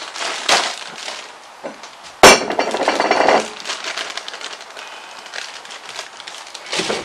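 A sharp knock about two seconds in, then the crinkling of a plastic steam-in-bag pouch of frozen vegetables being shaken and emptied into a bowl, with softer rustling as the last pieces fall out.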